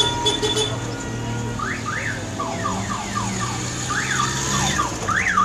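Classic car engines running at low speed, joined from about a second and a half in by a warbling electronic siren-like tone that sweeps up and down repeatedly.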